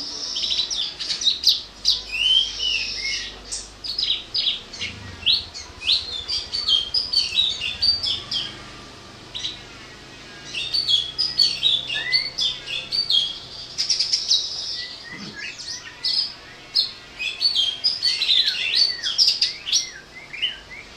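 Caged green leafbirds (cucak hijau) singing: rapid, varied chirps and whistles in long phrases, with short pauses about ten and fifteen seconds in.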